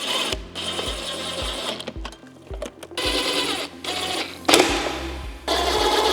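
Power screwdriver whirring in several short runs, driving screws to mount the module, over background music with a steady beat.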